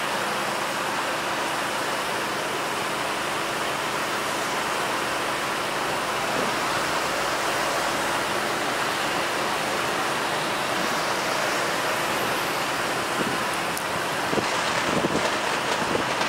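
Steady rushing noise of motorway traffic passing, even and unbroken, with a few faint knocks near the end.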